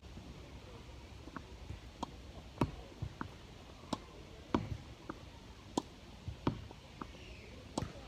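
A series of short, sharp knocks and clicks at uneven intervals, about a dozen, over a low background hum.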